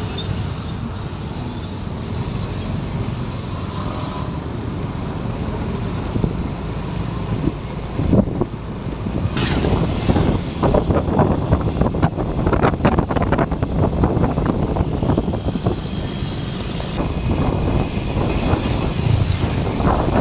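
Motorcycle ride: steady engine and road noise with wind on the microphone, louder and choppier from about eight seconds in.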